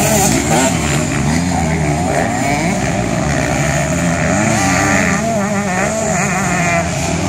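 Several motocross bikes' engines revving hard and easing off as they race around a dirt track, their pitches rising and falling over one another with no break.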